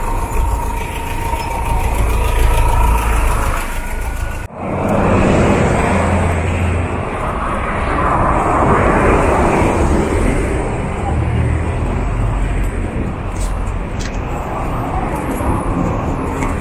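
City street traffic noise: cars and buses passing and running with a steady low rumble, mixed with passers-by talking.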